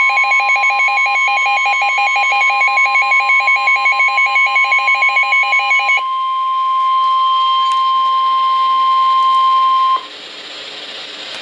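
NOAA Weather Radio 1050 Hz warning alarm tone, a single steady tone held for about ten seconds before cutting off abruptly. It signals that a warning, here a tornado warning, is about to be read. For the first six seconds a fast-pulsing two-pitch beeping sounds over it. Faint hiss follows the cutoff.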